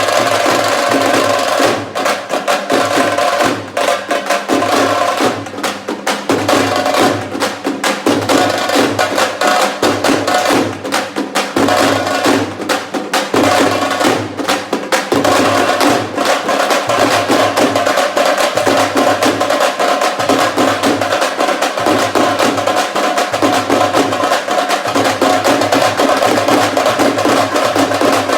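Drums beaten fast and without a break: a dense run of rapid strokes, with deeper low beats coming and going about once a second.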